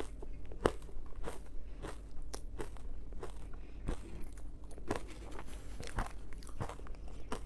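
Ice being bitten and crunched in the mouth, close to the microphone: a steady run of about a dozen sharp crunches, roughly two a second.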